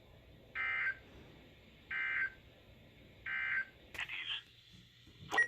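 NOAA Weather Radio SAME end-of-message signal: three short, buzzy digital data bursts about a second apart, which close the weekly test broadcast. Two sharp clicks follow near the end.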